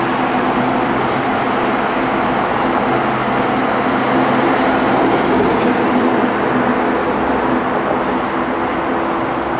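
Jet engines of a Boeing 747-400 running while the airliner moves on the ground: a steady, loud drone with a low hum, swelling slightly around the middle.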